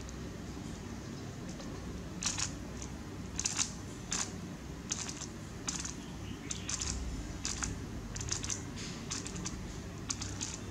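GAN 3x3 speedcube being turned by hand, its plastic layers clicking as they snap through a quick sequence of moves. The clicks start about two seconds in and come in irregular clusters and quick pairs.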